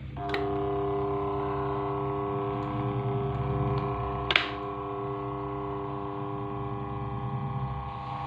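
A click of the stand fan's push-button switch, then the fan's electric motor humming steadily with its blade removed. A second sharp click comes about four seconds in.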